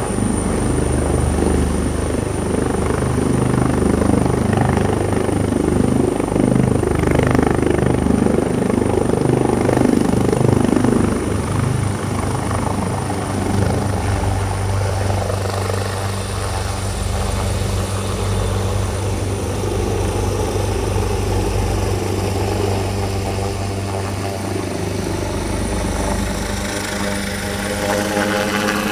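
Helicopter running close by: a heavy low rotor throb with a thin high whine. It is loudest during roughly the first ten seconds, then settles to a steadier run.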